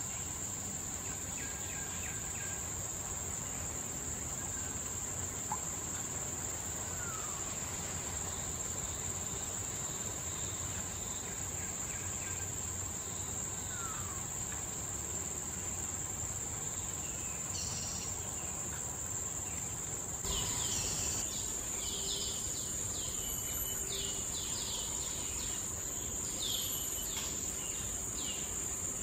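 Steady high-pitched insect drone of a tropical forest, with a few short descending bird whistles. About two-thirds through, the sound changes abruptly and a run of quick, high chirps joins in.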